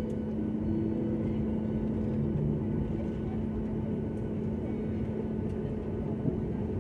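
Airliner cabin noise while taxiing after landing: the jet engines' steady low drone with a few held tones, heard from inside the cabin.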